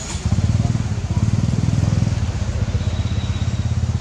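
An engine idling close by: a steady, low, rapid pulsing that starts about a quarter of a second in.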